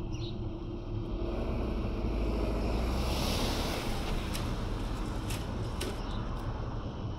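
An SUV drives past close by. Its engine and tyre noise swells to a peak about three seconds in and then fades as it drives away over the crossing, with a few sharp clicks near the end.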